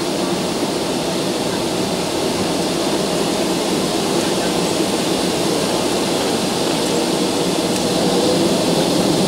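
Steady jet-engine hum and cabin noise inside a Boeing 757-200 taxiing at low power, heard from a seat over the wing. It grows slightly louder near the end.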